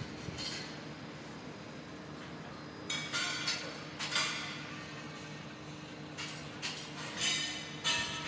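Steel scaffolding tubes and fittings clanging as they are thrown down during dismantling: about half a dozen sharp metallic clangs with a ringing tail, starting about three seconds in, over a steady low hum.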